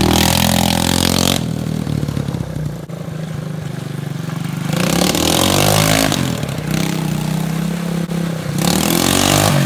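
Small ATV engine running while being ridden, its revs rising and falling. The engine drops and goes quieter about a second and a half in, then revs back up about five seconds in, dips again near the end and picks up once more.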